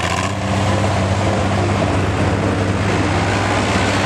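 Tractor engine running at a steady pitch.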